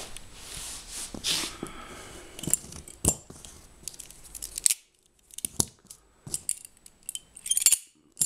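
Two balisong (butterfly) knives being handled: a rustling scrape in the first couple of seconds, then a string of separate sharp clicks and taps, the loudest cluster near the end.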